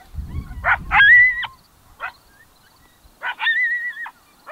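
Coyote bark-howls: sharp barks, each followed by a short, level howl, twice, with single barks in between. A low rumble sounds under the first bark-howl.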